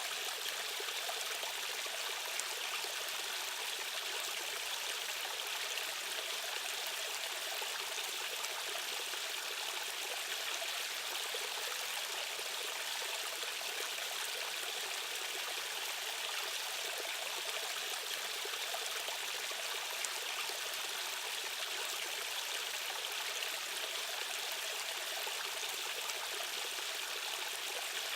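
Stream water rushing and babbling over rocks, a steady bright rush with no change.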